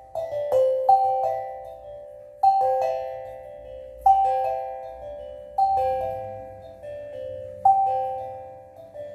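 Steel tongue drum played slowly, its notes struck in twos and threes about every second and a half, each ringing on and fading away.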